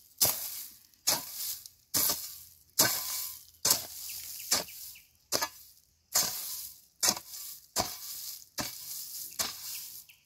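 Garden hoe chopping and scraping into dry, hard soil and weeds. Steady strokes come a little faster than one a second, each a sharp strike followed by a short rasp.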